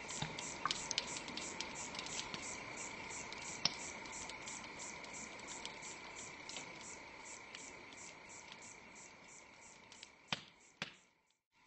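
Fire crackling sound effect: a steady hiss with sharp, irregular crackles, slowly fading, with two loud last cracks near the end before it cuts off.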